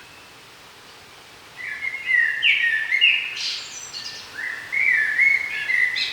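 A songbird singing two phrases, each a quick run of notes ending in a higher flourish; the first begins about a second and a half in, the second about two seconds later.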